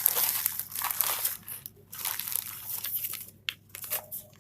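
Plastic packaging crinkling and rustling in irregular bursts as a USB cable is handled and pulled out of it.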